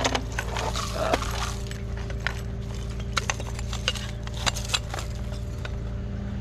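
Scattered sharp clinks and knocks of burned glass and metal debris being handled, over the steady hum of an idling truck engine.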